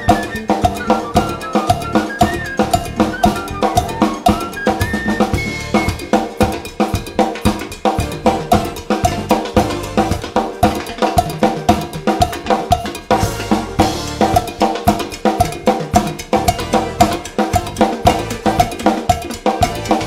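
Drum kit played in a busy Latin-funk groove over a backing track, with a cowbell pattern repeating throughout. A short melody line from the backing track runs over it in the first few seconds.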